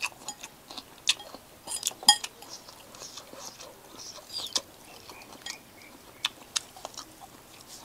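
Metal spoon clinking and scraping against a ceramic soup bowl, a scatter of sharp clinks with one ringing clink about two seconds in.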